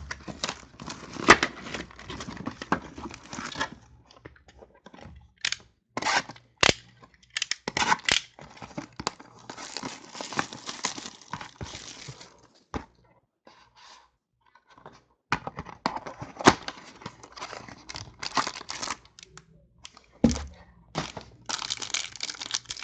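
Plastic shrink-wrap being torn off a sealed trading-card box, with crinkling plastic and irregular clicks and taps of the cardboard box being handled and opened.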